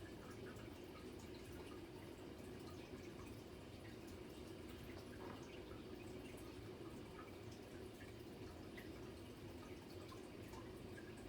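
Near silence: a steady low room hum with faint, scattered small ticks.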